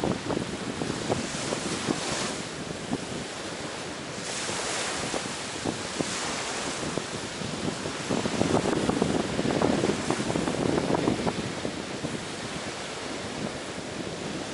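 Sea waves breaking and washing up on a beach, swelling and ebbing, with wind buffeting the microphone.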